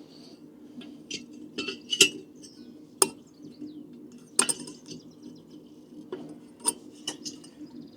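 A handful of sharp metallic clinks and taps, spaced irregularly, as the metal burner chamber of a diesel air heater is handled and dropped back into place.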